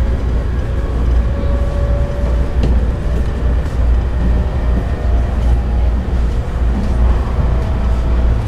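Cabin noise of a moving passenger train: a steady low rumble with faint humming tones above it.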